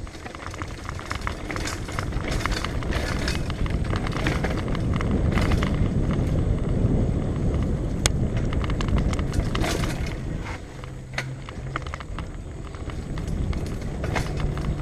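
Trek Fuel EX 8 full-suspension mountain bike ridden fast on dirt singletrack, heard from a helmet camera: a steady low rush of wind and tyre rumble, with frequent clicks and rattles from the bike over bumps. The rush eases briefly about two-thirds of the way through.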